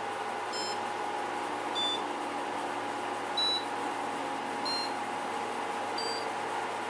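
Samsung AW05B5171TWA window air conditioner running with a steady hum and a constant whining tone, the machine noise the owner finds far from quiet. Five short electronic beeps sound over it, roughly one every second and a half.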